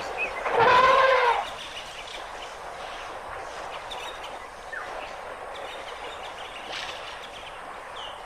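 An African elephant trumpets once, a loud pitched call lasting about a second, about half a second in, over a faint steady background hiss.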